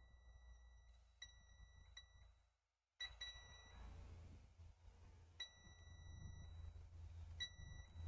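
Digital multimeter's continuity buzzer giving about six faint, uneven beeps as the probes touch a laptop MOSFET: the beeping signals continuity across the part, meaning the MOSFET is shorted.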